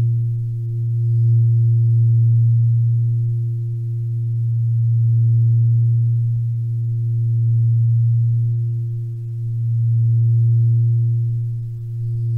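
A steady, low, humming drone tone in the style of relaxation background audio, gently swelling and fading every two to three seconds.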